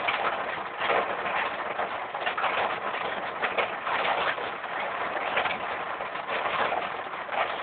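Hail and rain falling hard, a dense, steady clatter of countless small impacts that swells and eases a little.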